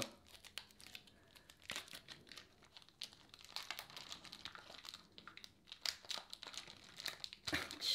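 Foil trading-card pack wrapper crinkling and tearing in short, irregular crackles as it is peeled open by hand along a firmly glued seal.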